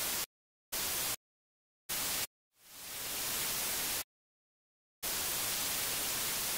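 TV static hiss sound effect cutting in and out: three short bursts with dead silence between them, then one that fades in, and after about a second of silence the hiss runs on steadily.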